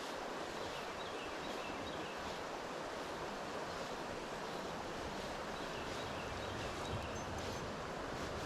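Steady rush of flowing river water. A low wind rumble on the microphone joins about six seconds in.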